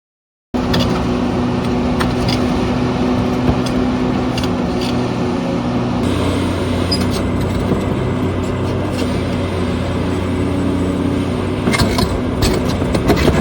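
Hitachi EX1200 excavator's diesel engine running steadily under load, starting abruptly about half a second in, with scattered knocks from the rock being worked that grow more frequent near the end.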